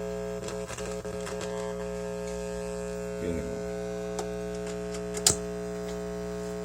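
Steady mains hum from an old turntable played through an amplifier, with its ground wire not yet connected to the amplifier's body. A sharp click about five seconds in.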